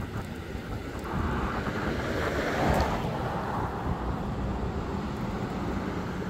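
A vehicle passing on the street: its tyre and engine noise swells to a peak about two and a half seconds in, then slowly fades, over a low steady hum.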